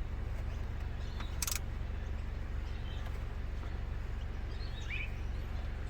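Outdoor ambience: a steady low rumble, one short burst of noise about a second and a half in, and a few faint bird chirps near the end.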